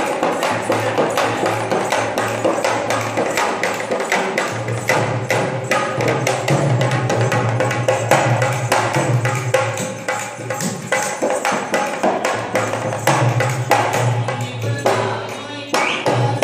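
Dholak, a two-headed barrel hand drum, played with the hands in a quick, steady rhythm of strokes over a deep, ringing bass tone.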